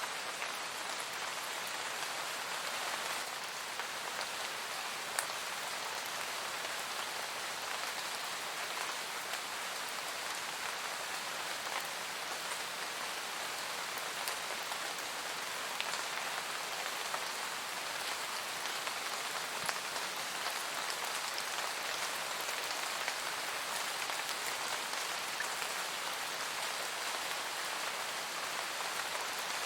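Steady rain falling and pattering on a surface, with scattered individual drop ticks heard through it.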